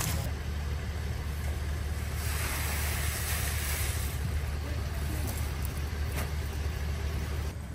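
A machine running with a steady low drone, which drops away near the end. About two to four seconds in, a rattling hiss of wooden ice cream sticks pouring from one sack into another.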